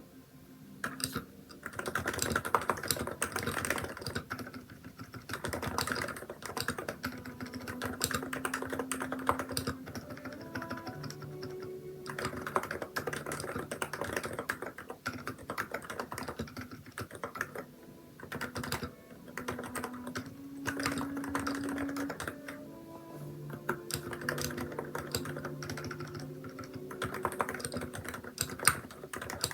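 Fast typing on a Hansung electrostatic-capacitive keyboard with XDA keycaps, keystrokes in runs of a few seconds separated by short pauses, over soft background music.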